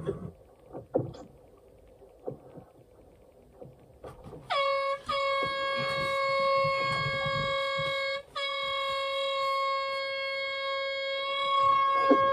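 Air horn blown about four and a half seconds in: a short toot, then a steady blast of about three seconds, a split-second break, and another long blast held at the same pitch. It is sounded as a warning at a boat bearing down on the fishing boat.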